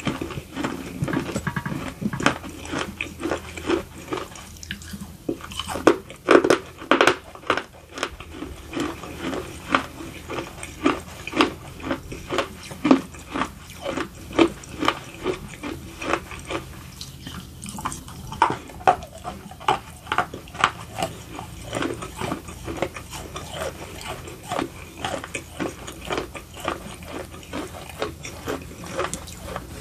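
Close-up chewing of crunchy baked edible clay: a steady run of crisp crunches and mouth sounds at about two a second, loudest around six to seven seconds in.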